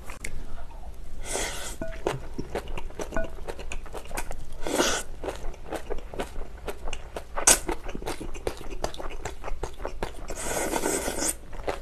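Close-miked chewing of crunchy napa cabbage kimchi and rice: wet mouth sounds with many small clicks and crunches, and four longer airy slurps mixed in.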